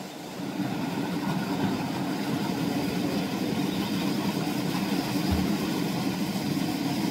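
Quadcopter camera drone's propellers humming steadily, getting louder about half a second in.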